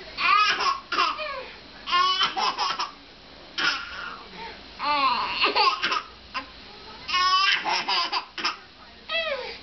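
Baby laughing hard in about six high-pitched bursts, each under a second and a half long, with short gaps between them.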